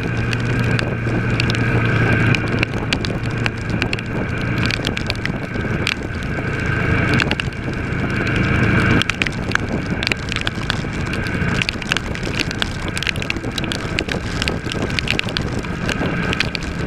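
Kawasaki ER-6's parallel-twin engine running at cruise, heard under a steady rush of wind and rain spray, with many small clicks of raindrops striking. The engine note changes about halfway through.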